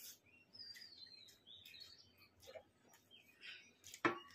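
Small birds chirping repeatedly in the background: thin, high calls, some falling in pitch. About four seconds in comes a single sharp knock of steel tableware.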